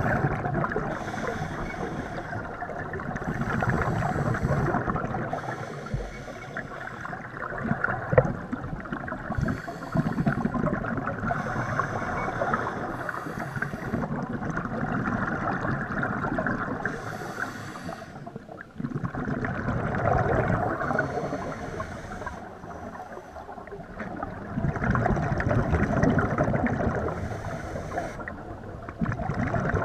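Scuba diver breathing through a regulator underwater: bubbly exhalations that swell and fade every few seconds, with a short hiss of inhalation between them.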